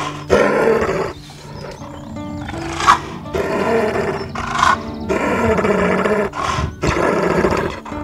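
Spotted hyena growling and roaring in a series of rough calls, each about half a second to a second long, over background music with steady low notes.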